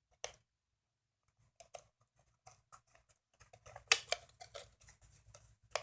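Scattered small clicks and taps as a mounting bracket is fitted onto a plastic LED party light by hand, with two sharper clicks, one about four seconds in and one near the end.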